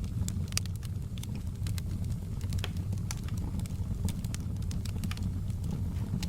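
Wood fire crackling in a fireplace: irregular sharp pops and snaps, several a second, over a steady low rumble of the burning.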